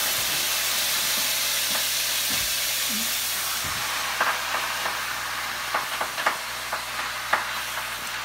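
Steady sizzling of bear offal stir-frying in a hot pan. From about halfway in, a cleaver knocks several times against a wooden cutting board as it chops through a braised bear paw.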